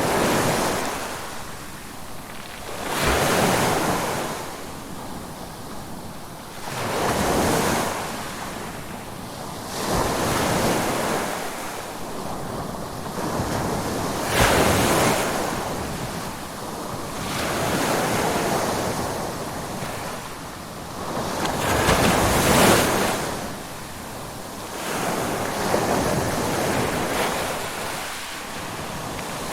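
Ocean waves breaking and washing in, the surf swelling and fading again about every four seconds.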